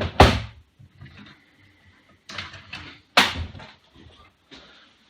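Knocks and clunks of a PC case's metal side panel being handled and set down, with a sharp knock just after the start and a louder one about three seconds in.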